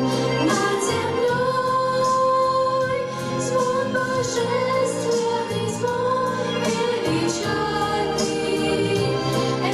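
Two female voices singing a song in duet, holding long notes over a steady instrumental accompaniment.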